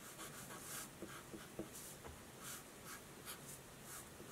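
A felt-tip marker drawing on paper: faint, short, scratchy strokes in quick, irregular succession.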